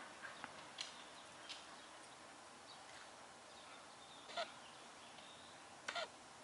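Two Siberian huskies moving about on a hardwood floor: a few faint clicks early on, then a short high squeak about four seconds in and a doubled one near the end.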